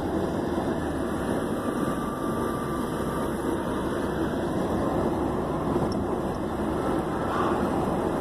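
Steady road noise heard inside a moving car's cabin: tyres running on the road and the engine at cruising speed, an even rumble that does not change.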